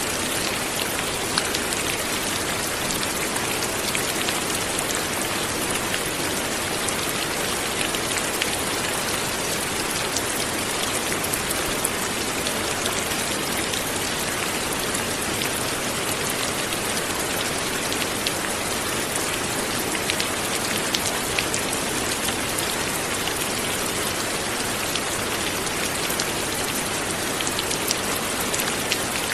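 Steady light rain falling on a surface, a continuous hiss with many small drop ticks scattered through it.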